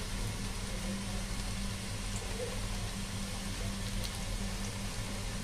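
Shami keema tikiya, minced-meat patties, sizzling steadily as they shallow-fry in oil on a low flame, over a steady low hum. A spatula lightly touches a patty about four seconds in.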